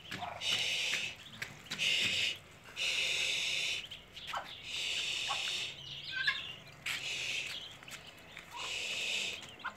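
A brood of newly hatched Muscovy ducklings peeping together in shrill bursts, about six bursts, each under a second long.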